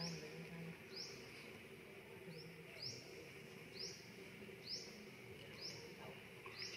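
A small bird's short, high chirp, repeated about once a second over a faint steady background hum.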